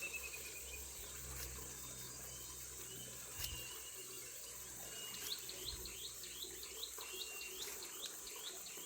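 A bird calling in short chirps, breaking into a fast, even run of chirps at about three a second from about halfway through, over a steady high-pitched insect drone.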